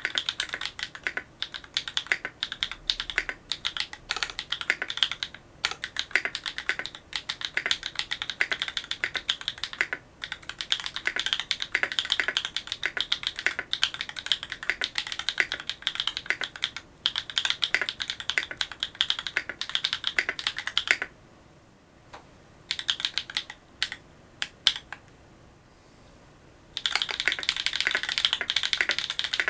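Fast typing on a Duck Orion V3 custom mechanical keyboard with lubed Holy Panda tactile switches, an FR4 plate and GMK Oblivion keycaps: a rapid stream of keystrokes. About two-thirds of the way in the typing pauses for several seconds, with only a few separate key presses, then picks up again at full speed.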